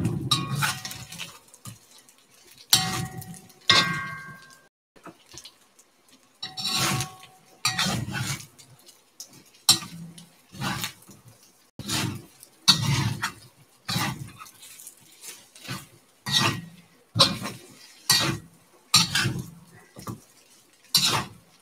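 A utensil scraping and knocking against a cast iron pan about once a second as fried rice is spread and stirred around the pan. A few strokes leave a brief ring.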